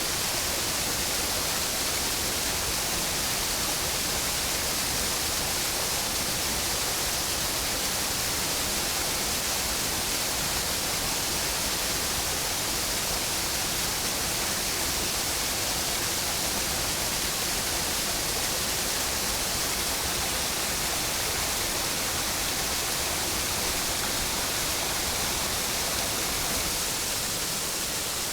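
Waterfall rushing with a steady, dense roar of water, even throughout.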